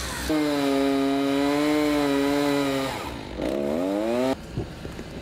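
Chainsaw run at high revs while cutting storm-damaged trees. It holds a steady note for a couple of seconds, drops, then revs up again and stops abruptly about four seconds in. Quieter scattered knocks follow.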